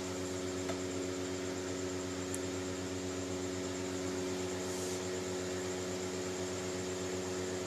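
A steady electrical hum with hiss, several fixed tones held without change, and a faint click about a second in.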